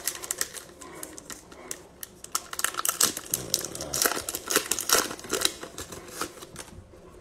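A foil Mosaic football cello pack wrapper being torn open and crinkled by hand, in quick, irregular crackles.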